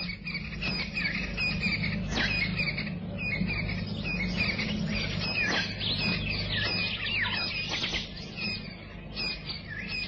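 Dawn chorus of many African bushveld birds, chirps and quick down-slurred whistles overlapping continuously, over a steady low hum.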